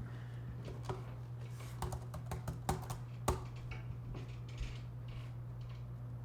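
Typing on a keyboard: a short, irregular run of key clicks in the middle, over a steady low hum.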